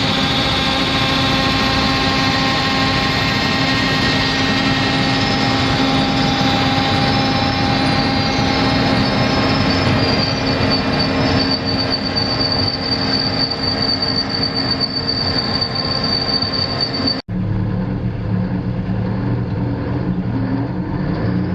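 Heavy machinery running steadily: a dense mechanical noise with a high whine coming in about halfway through. About 17 seconds in it cuts to a lower, steadier engine drone.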